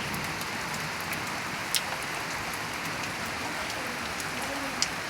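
Heavy rain falling steadily, with two sharp ticks of drops striking something, one nearly two seconds in and one near the end.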